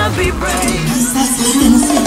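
Background music changing tracks: the pop beat stops and a Latin-style song with shakers and sustained low notes comes in.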